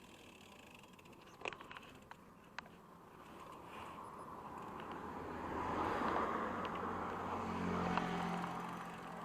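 A motor vehicle approaching and passing close by, its noise swelling to a peak and easing off, with a low engine hum near the end. A few sharp clicks sound about a second and a half in.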